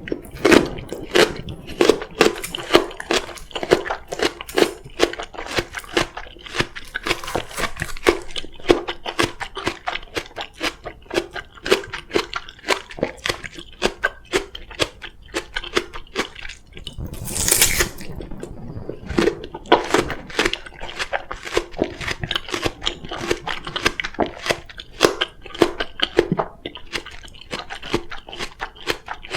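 Close-miked crunchy chewing of oriental melon (chamoe), a dense run of short crisp bites and chews. A brief louder noisy burst comes a little past halfway.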